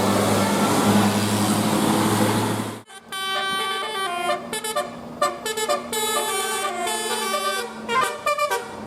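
Bus engine and road noise, then, after an abrupt cut about three seconds in, a telolet horn (a multi-tone air horn) playing a quick tune of short notes at changing pitches, over a steady low engine hum.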